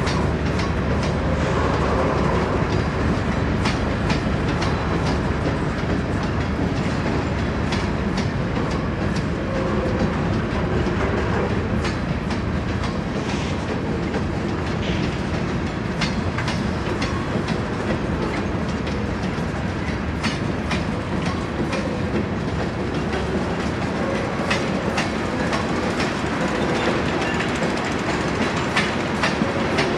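Double-stack intermodal freight train rolling past: a steady rumble of cars with wheels clicking over rail joints.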